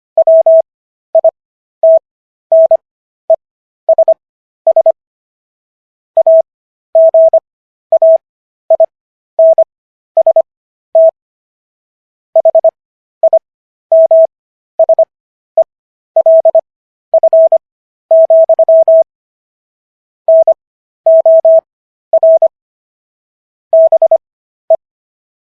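Morse code sent as a single steady beep tone keyed in short and long beeps, spelling out the text of the Fifth Amendment of the US Constitution. Characters are sent at 25 words per minute with widened Farnsworth spacing for an overall 15 words per minute, and pauses of about a second fall between some words.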